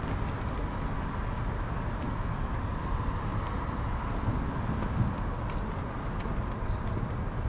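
Steady city-centre ambience: a low hum of distant traffic, with a few faint ticks.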